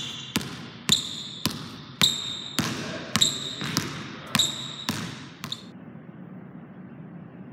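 Basketball dribbled hard on a hardwood court floor, about two bounces a second, stopping about five and a half seconds in; faint room tone after that.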